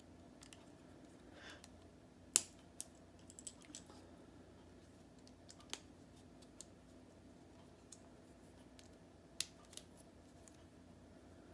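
K'nex plastic connectors and rods clicking as loose pieces are handled and snapped onto the ride's seat rack: scattered sharp clicks, the loudest about two and a half seconds in, a small flurry just after, and a few more later.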